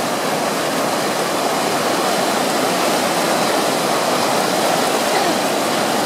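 Mountain river rushing over boulders in whitewater rapids: a loud, steady rush of water.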